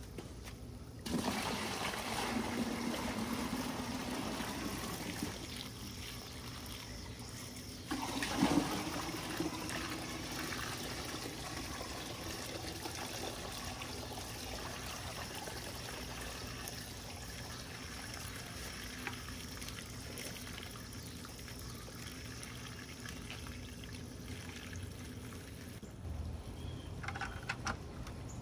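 Water being poured into a plastic bucket. It starts about a second in, a second, stronger pour comes about eight seconds in, and then it settles to a steady trickle.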